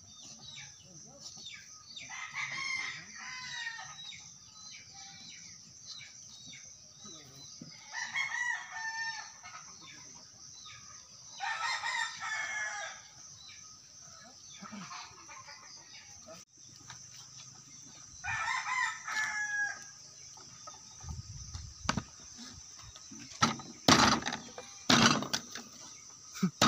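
Roosters crowing, four long crows a few seconds apart, over a steady high insect drone. Near the end come a few sharp chops of a knife blade striking a wooden chopping stump.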